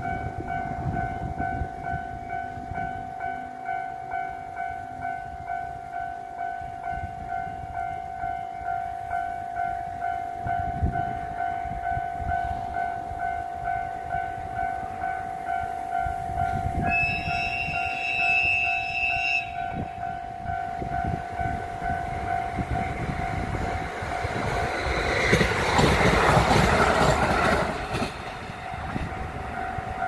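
Level-crossing warning bell ringing with a steady repeating electronic tone. A train horn sounds for about two seconds past the middle. Near the end the train passes with a loud rush of wheel and rail noise lasting a few seconds.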